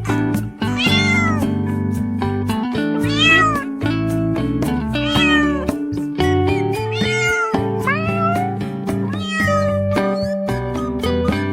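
A cat meowing again and again, about five arched calls that rise and fall in pitch, over background music with a steady beat.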